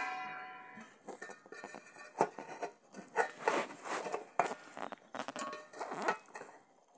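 The ring of a steel lid dies away in the first second, then light metallic clinks, knocks and scrapes as a cake tin is handled inside an aluminium pot.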